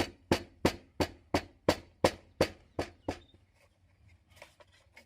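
About ten sharp knocks, evenly spaced at roughly three a second, stopping about three seconds in, then a few faint clicks.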